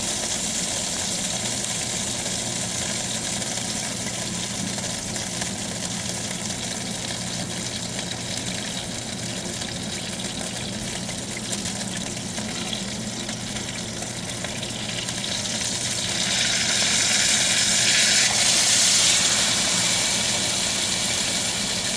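Dry-aged steak sizzling in hot olive oil in a pan as its fat renders, a steady hiss that swells louder near the end, with a steady low hum underneath.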